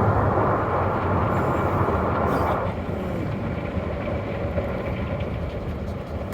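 Automatic tunnel car wash machinery running around the car: a dense wash of spraying and scrubbing noise that drops away about two and a half seconds in, leaving a quieter steady hum.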